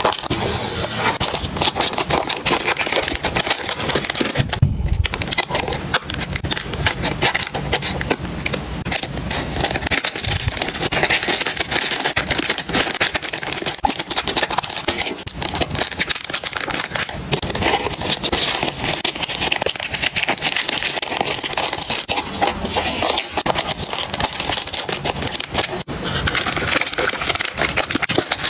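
Clear plastic packaging bags crinkling as they are handled and folded, a dense run of small crackles, with a short low thud about five seconds in.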